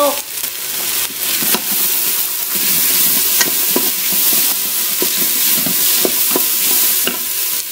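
Diced onion sizzling in the stainless steel inner pot of an Instant Pot on sauté, with a steady frying hiss. A wooden spoon stirs it, scraping against the pot now and then.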